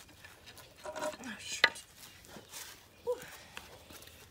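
Wooden boards and bricks being shifted and set down on asphalt: scattered knocks and clacks, with one sharp knock about a second and a half in.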